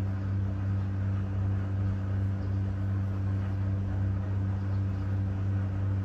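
Steady low-pitched electrical hum with a few overtones, over a faint hiss.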